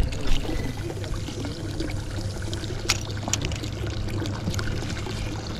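Water lapping and trickling against the side of a small boat, with a few sharp clicks around the middle.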